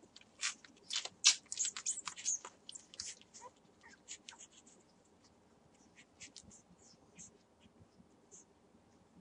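Six-day-old Entlebucher Mountain Dog puppies suckling at their mother's teats: quick, wet smacking and clicking sounds. They come thick and fast for the first three seconds or so, then thin out to scattered smacks.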